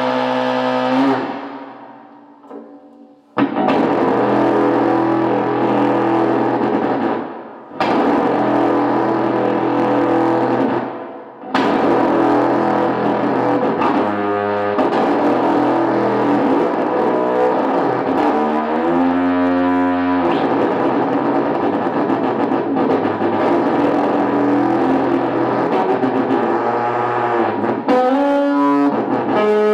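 Heavily distorted electric guitar played through a "feedbacker" noise/feedback effects pedal: loud, sustained fuzzy drones that cut out and restart three times in the first half. Twice, about halfway through and again near the end, the tone breaks into a warbling pitch sweep that steps up and down.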